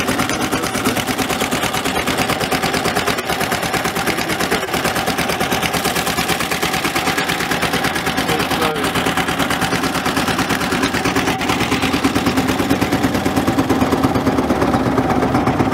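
A small wooden river boat's engine running steadily under way, a rapid, even chugging.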